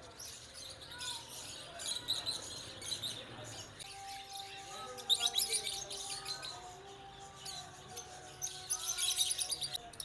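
A shop full of caged zebra finches and lovebirds chirping and twittering in quick high trains, loudest about five seconds in and again near the end. Faint background music runs underneath.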